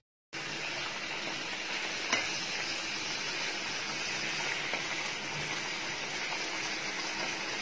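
Marinated chicken pieces sizzling and bubbling steadily in butter and oil in a kadai on medium flame, the pieces simmering in their own juices as they cook through, with one faint tick about two seconds in.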